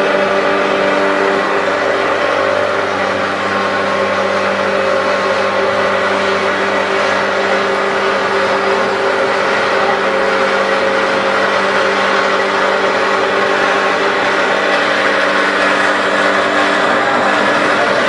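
Pump of a hydraulic mixer for non-autoclaved aerated concrete running at a steady pitch, pushing the mix through a hose into a panel form.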